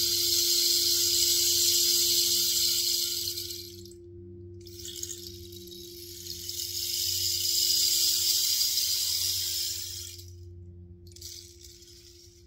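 Rain stick tipped three times, its seeds pouring in a trickling hiss: a long pour, a second long pour after a short pause, and a brief third near the end. Underneath, a crystal singing bowl rings in one steady tone.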